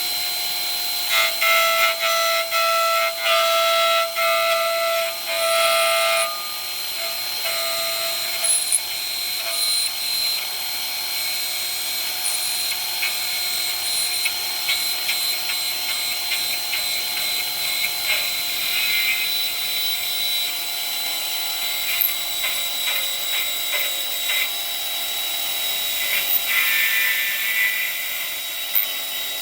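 Lathe running with a steady high-pitched whine and irregular cutting noise from the tool working the piece. Short ringing tones sound during the first few seconds.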